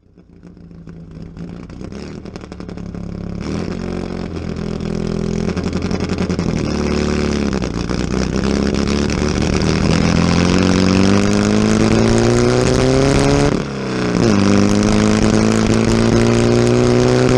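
A 1928 Dodge Brothers 212-cubic-inch flathead four-cylinder race engine pulling hard under full throttle, its pitch climbing steadily. About 14 seconds in it drops briefly in pitch and loudness as it shifts up a gear, then climbs again.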